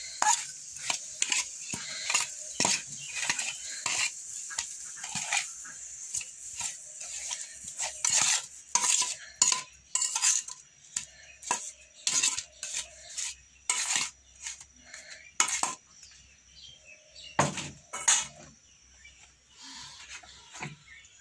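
Stainless steel bowl and spoon clinking and knocking as turmeric-coated fish pieces are handled and stirred: irregular metallic clicks, denser in the first half, over a faint steady high hiss.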